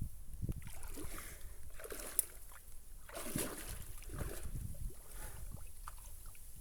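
Water sloshing and splashing in irregular swells as a water buffalo moves through water, over a low rumble of wind on the microphone.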